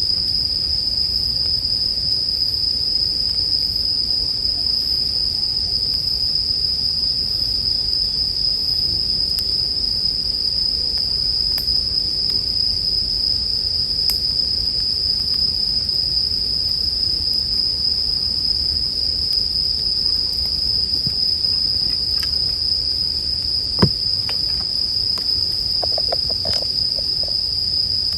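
Bell crickets (suzumushi) singing in a steady, unbroken high trill, over the low rumble of a campfire with a few sharp crackles and pops near the end.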